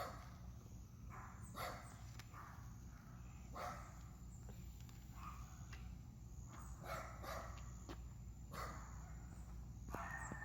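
A dog barking over and over, about one bark every second or two.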